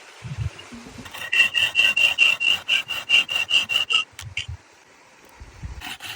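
Quick rhythmic scraping or rubbing strokes, about five or six a second, each with a thin squeak. They stop about four seconds in and start again near the end.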